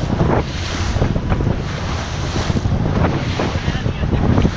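Speedboat underway at speed over choppy sea: wind buffeting the microphone and the hull slapping through the waves with spray, over a low engine drone.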